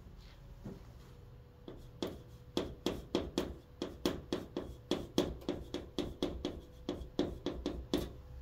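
Chalk writing on a chalkboard: after a short pause, a quick run of chalk taps and short strokes starts about two seconds in, roughly three a second, over a faint steady hum.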